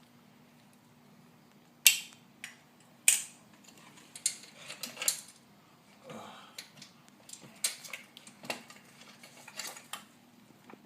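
Small metal parts clinking and tapping, a throttle cable end and its fittings knocking against the carburetor linkage as the cable is worked into place, with sharp clinks about two and three seconds in and a short scrape around six seconds.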